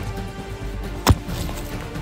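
Background music, with the sharp knock of a hatchet striking a pine trunk at the start and a louder strike about a second in.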